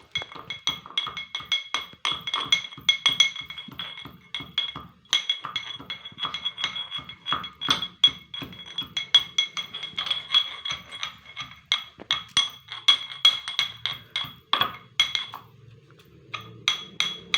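Metal pestle pounding ginger in a steel mortar: fast, uneven strikes, each ringing with the same metallic tone. There is a short break about five seconds in and another near the end.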